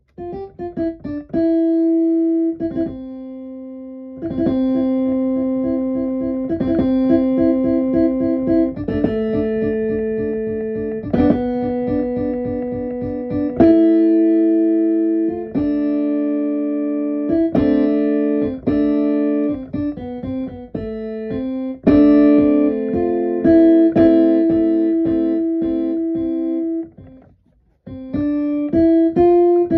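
Electric keyboard playing a tune, one note after another, each starting sharply and fading away, with a brief pause near the end.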